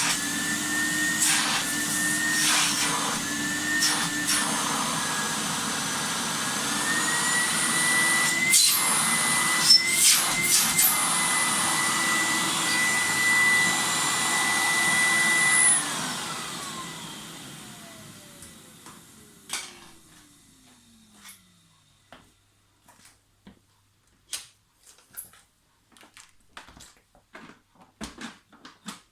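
Fagor Electronic 2.350 vacuum cleaner running with a steady whine and a few knocks, then switched off about 16 seconds in, its motor whine falling away over several seconds. Scattered light clicks and knocks follow.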